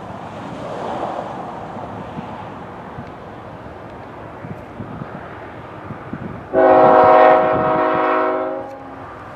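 Air horn of a CSX freight locomotive sounding one long chord of several notes. It starts suddenly about six and a half seconds in and lasts about two seconds. Before it there is a steady rush of wind on the microphone.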